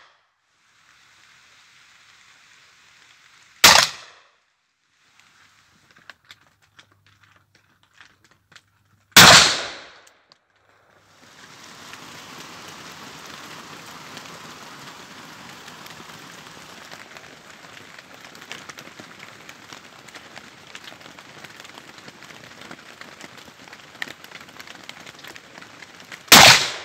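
Smith & Wesson .460 Magnum revolver fired three times: a shot, another about five seconds later that rings out longest, then a third after a long gap. Each is a sharp crack with a short echo. A steady rushing hiss fills the long gap before the last shot.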